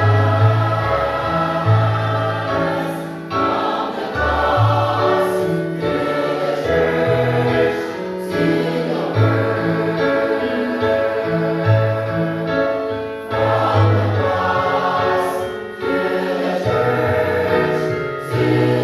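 Mixed choir of men's and women's voices singing a hymn arrangement in parts, sustained harmonies over a recorded minus-one accompaniment with a steady bass line.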